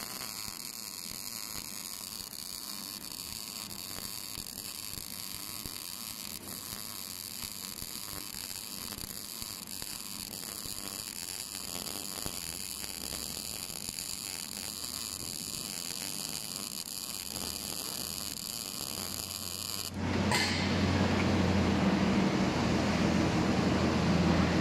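MIG welding arc on steel, a steady sizzling hiss with a hum as the torch runs a fillet weld. About 20 s in, the arc sound gives way abruptly to a louder, broader noise with a low hum.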